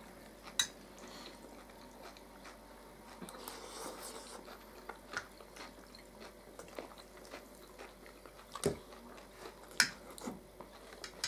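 People eating at a table: quiet chewing, with scattered short clicks of forks against plates and a couple of sharper clicks near the end.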